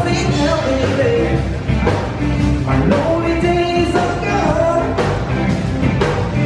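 Live rock-and-roll music: a singer holding long notes over electric guitar and band backing.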